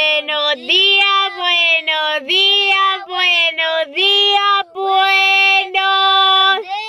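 A woman and a young boy singing a tune together inside a car: a run of clear held notes with short breaks between them, no words picked out.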